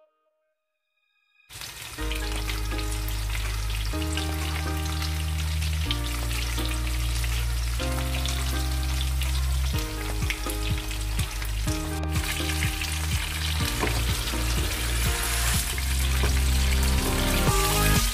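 Chicken pieces sizzling in hot oil in a frying pan, starting after about a second and a half of silence. Background music with held notes and low bass chords plays under the sizzle.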